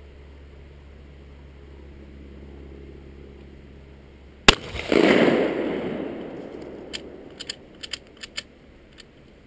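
A single shot from a 12-gauge Remington 870 pump shotgun about halfway through, with a long rolling echo dying away over a couple of seconds. Then a series of short clacks, typical of the pump action being worked to eject the spent shell.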